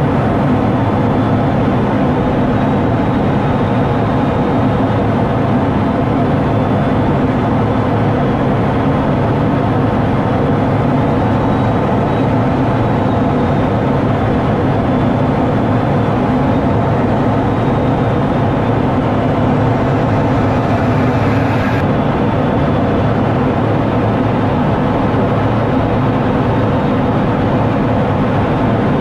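Steady cockpit noise of an F-16 fighter in flight, a continuous dense drone of jet engine and airflow past the canopy. The highest hiss drops off abruptly about three-quarters of the way through.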